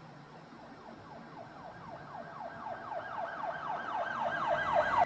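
Police car siren wailing in a fast yelp, its pitch sweeping over and over about four times a second and growing steadily louder.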